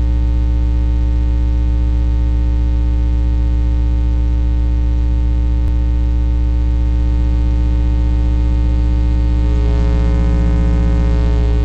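Loud, steady electrical mains hum with a buzz of many overtones, the hum of the recording itself. About ten seconds in, a fainter wavering sound joins it for a moment.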